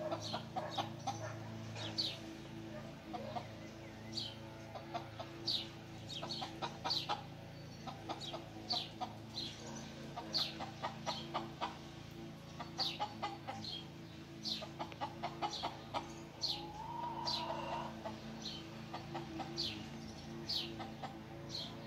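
Chicken clucking in short runs, with small birds giving sharp, falling chirps many times over, above a steady low hum.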